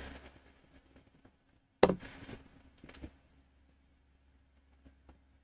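Quiet room tone with a steady low hum, broken by a sharp knock or click about two seconds in, a softer one about a second later, and a couple of faint ticks near the end.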